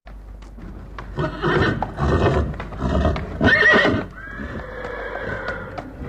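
A horse whinnying: loud, broken, shaky calls about a second in, rising to the loudest near four seconds, then a fainter held tone. Hooves clop in scattered beats around the calls.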